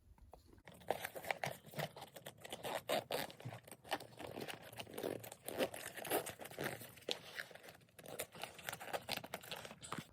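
A Fjällräven Kånken sling bag being opened by hand: a busy run of fabric rustling, crinkling and small clicks as the main compartment is unclipped and unzipped.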